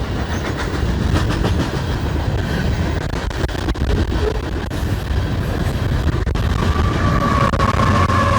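Coal train cars rolling past, their wheels clicking over the rail joints in a steady rush of noise. A steady whine comes in near the end.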